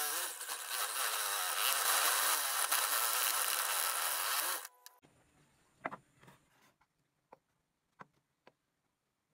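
Small electric bench saw with a thin vertical blade cutting wood, running steadily with a wavering pitch as the block is fed. It cuts off abruptly about halfway through, and a few light knocks follow.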